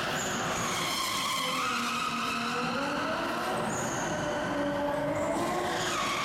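Nissan 200SX drift car's engine revving up and down in a drift, its pitch rising and falling, with tyres skidding and squealing on the arena floor.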